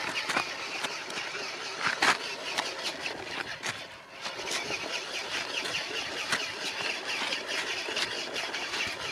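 Radio-controlled model dump truck working: its small motor and gearing whirr steadily, with many small clicks throughout and a sharper clack about two seconds in.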